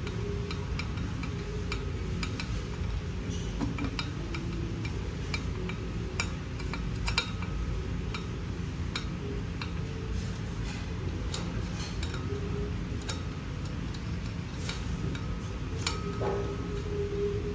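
Small metallic clicks and ticks at irregular intervals from a hand screwdriver turning a screw through a black metal arm into a metal bracket, over a steady low rumble.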